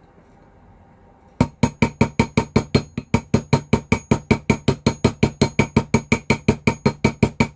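Small metal hammer tapping a rivet on a ring held on a steel ring mandrel: a fast, even run of light strikes, about six a second, starting about a second and a half in. Each strike has a short metallic ring. This is riveting, spreading the rivet head flat.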